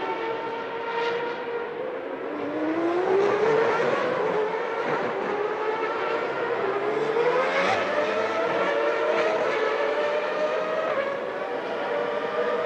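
Formula One cars' high-revving naturally aspirated engines running past on the Monaco street circuit. Several engines are heard at once, pitch climbing as they accelerate, dropping briefly around the middle and climbing again.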